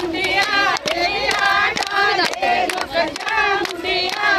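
Women singing a Punjabi boli in high voices over steady rhythmic hand-clapping of giddha, about two claps a second.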